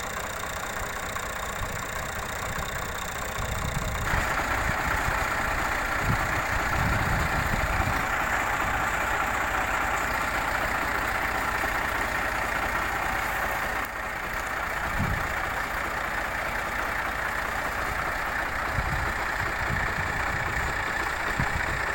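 Fiat tractor engine running steadily while driving a wheat thresher through its PTO shaft. About four seconds in, the sound gets louder, with a rushing hiss from the thresher added over the engine.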